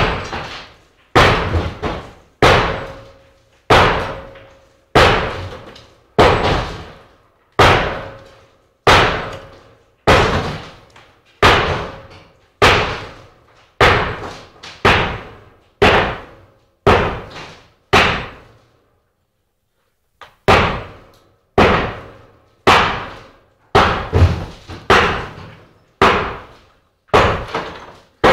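A long series of loud, sharp bangs, about one a second, each ringing out briefly before the next; they stop for about two seconds a little past the middle, then carry on.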